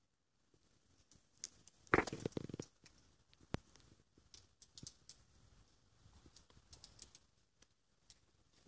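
Footsteps on loose stone rubble: irregular crunches and small clicks, the loudest cluster about two seconds in.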